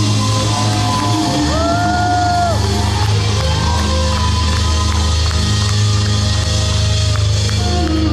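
Live rock band playing loudly, with electric guitars and bass holding sustained notes, heard from within the audience. Crowd whoops and yells come through over the music.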